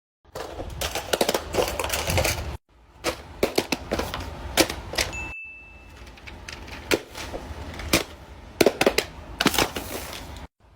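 Plastic fidget toys clicking and popping in quick, irregular runs of sharp clicks, in short clips that cut off abruptly between them. A brief high ring sounds about five seconds in.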